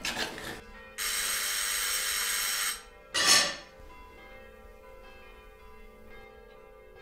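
Cutlery clinks against plates briefly at the start. About a second in, an electric doorbell rings steadily for nearly two seconds, and a short loud sound follows just after three seconds.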